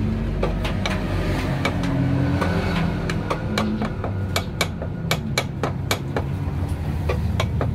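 A hammer tapping on metal: scattered blows at first, then a quick steady run of strikes, about three a second, from about halfway. A low steady rumble lies beneath.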